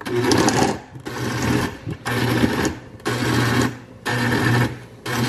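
Countertop blender pulsed in short bursts about once a second, six in all, chopping tomatoes, onion and garlic in chicken broth. It is run in pulses so the vegetables stay coarse, as if chopped by hand, not fully puréed.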